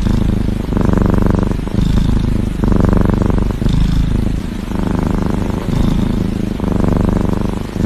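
Kitten purring loudly, a fast rattling pulse that swells and eases in turn, louder about every two seconds.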